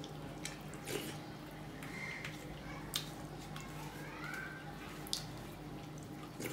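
Rice and dal being squished and mixed by hand on a steel plate, with a few sharp wet clicks. A steady low hum runs underneath.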